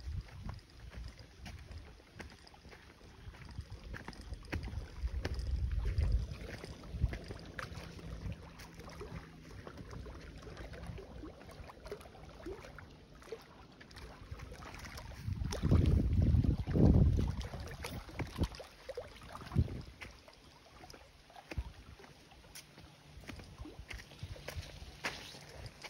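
Wind gusting across the phone's microphone as an uneven low rumble, loudest for about two seconds a little past halfway, with scattered light clicks of footsteps on dirt.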